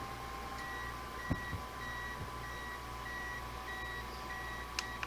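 The appliance heating the skillet beeping: a short high beep repeating evenly, about one every half second or so, starting about half a second in. A couple of faint knocks sound partway through.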